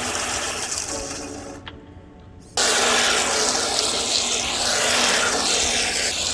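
RC drift car running over rough ground: a loud rushing hiss of hard plastic tyres scrubbing and skidding, with the whine of its electric motor rising and falling. The sound fades and drops low about two seconds in, then comes back suddenly at full level.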